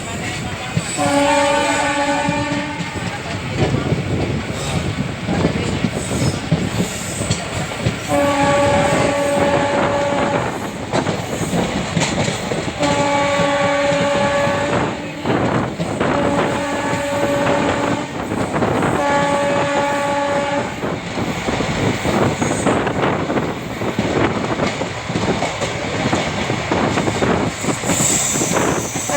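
Horn of a WAP-4 electric locomotive sounding five blasts of about two seconds each. Under it runs the steady rumble and clickety-clack of ICF coaches on the track.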